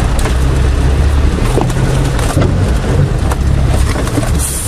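Land Rover Defender engine running at low revs, heard from inside the cab as a steady low drone, with scattered knocks and rattles from the body as it creeps over a rough stony track.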